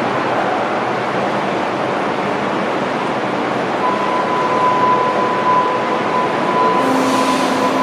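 Nuremberg U-Bahn G1 train standing at an underground platform with its doors open, giving a steady rushing hum. A steady high tone joins about four seconds in, and a brief hiss comes near the end.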